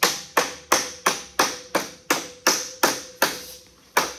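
Rubber mallet repeatedly striking a half-inch tab of 26-gauge galvanized sheet metal held under a clamped wooden board, folding the tab over. The blows come about three a second, evenly, with a short break near the end.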